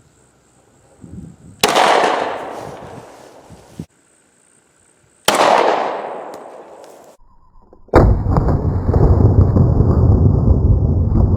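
Two shots from a Glock 20 10mm pistol, about three and a half seconds apart, each with a long echoing decay. About eight seconds in comes another loud, sudden blast, followed by a steady, heavy low rumble.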